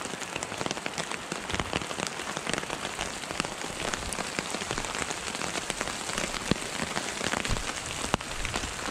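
Steady rain pattering, with many individual drops ticking close by.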